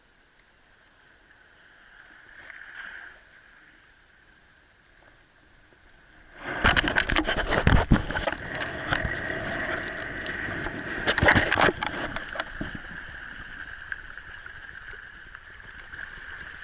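Water splashing and churning, starting suddenly about six and a half seconds in with a loud rush of sharp crackles that slowly eases off.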